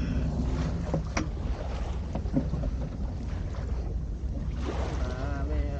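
Steady low rumble of wind on the microphone aboard a small sailboat under way, with a couple of light knocks. A voice starts faintly near the end.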